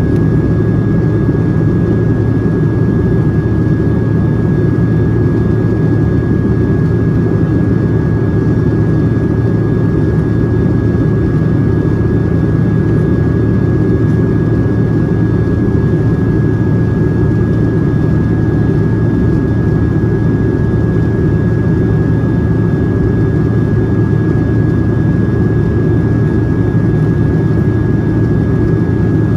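Boeing 757-200 cabin noise in flight: a steady roar of the jet engines and rushing air, heard from a main-cabin window seat, with a thin steady whine riding above it.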